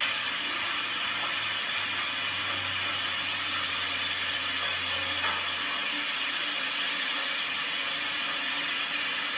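A steady hissing noise with a low hum underneath, starting abruptly.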